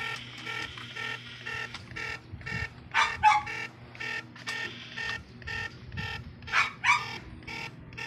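Handheld satellite finder meter beeping in a quick, steady repeating pattern as it picks up the satellite signal. A dog barks twice about three seconds in and twice again near seven seconds; the barks are the loudest sounds.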